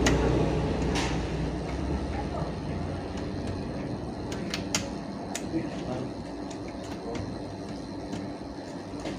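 Scattered sharp clicks and taps of small hard plastic and metal parts being handled during laptop reassembly, the clearest about a second in and a few around the middle, over a low background rumble that fades away in the first two seconds.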